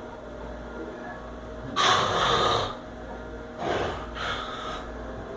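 A sleeping person snoring loudly: one harsh snore of about a second around two seconds in, then a second, shorter snore near the four-second mark.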